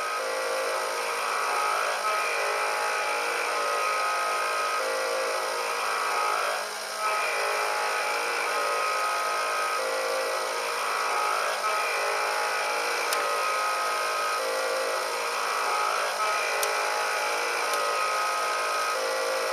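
Small electric motors of a G-scale model sawmill whirring steadily as the motorized carriage carries a log toward the saw blade, the whine pulsing in a repeating pattern about every second and a half.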